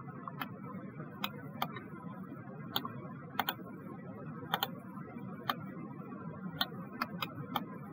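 Computer mouse clicking: about a dozen short, sharp clicks at irregular intervals, some in quick pairs, over a faint steady background hiss.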